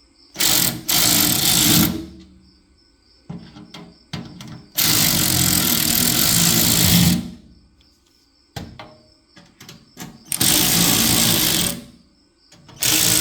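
Power drill-driver running in four bursts of one and a half to two seconds each, driving a tool cart's leg screws home into its rivet nuts, with light clicks and knocks of handling between the bursts.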